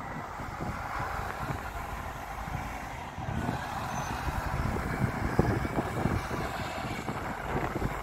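Diesel earthmoving machinery, a wheel loader and dump trucks, running in an excavation pit as a steady rumble, with wind buffeting the microphone.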